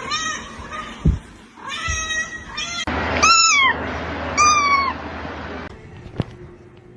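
A domestic cat meowing repeatedly: several short meows, then two longer, louder meows that fall in pitch.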